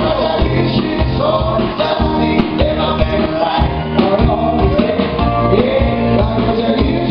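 Man singing live into a handheld microphone over a backing track with a steady beat, amplified through a PA.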